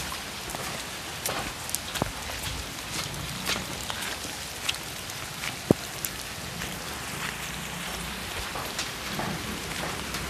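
Rain falling: a steady hiss with scattered drops ticking sharply now and then.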